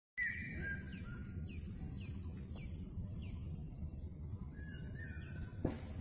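Outdoor ambience: a steady high insect drone, with a bird giving about five short falling chirps a little over half a second apart and a few whistled notes, over a low rumble. A single sharp tap near the end.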